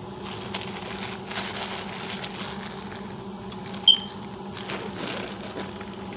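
Plastic bag of balloons crinkling and rustling as it is shaken and handled, over a steady low hum, with one short high squeak about four seconds in.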